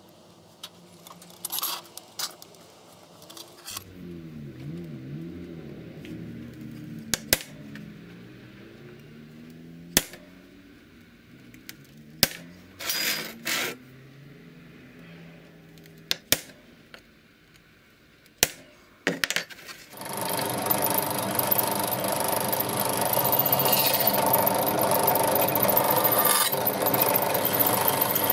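Scattered clicks and taps of a steel ruler and marker on a wooden workbench while a knife blank is marked out. About two-thirds of the way in, a drill press starts drilling into the saw-blade steel blank, running steadily and loudly with a constant hum-like tone to the end.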